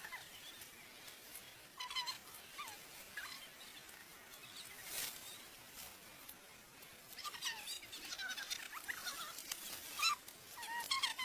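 Small birds chirping in short, curving calls: a few near the start, then a busier cluster in the second half. A few sharp clicks or rustles come in between.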